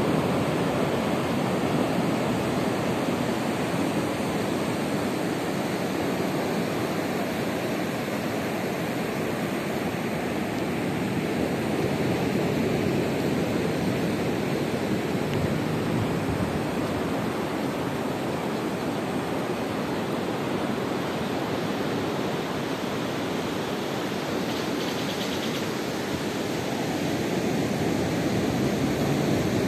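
Ocean surf breaking and washing onto a sandy beach: a steady rush of waves that swells and eases a little.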